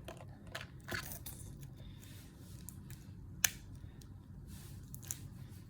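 Hands handling adhesive tape and small plastic bracelet pieces: faint rustling and light clicks, with one sharper click about three and a half seconds in.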